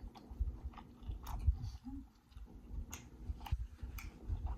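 A person chewing and biting food close to the microphone, with irregular wet mouth clicks and smacks.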